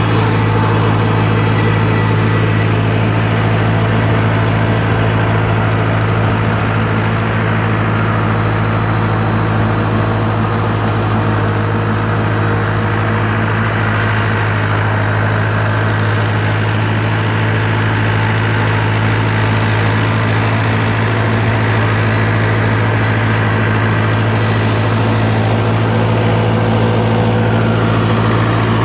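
Farm tractor's engine running at a steady, even speed while pulling a plough, a constant low note with no change in pitch.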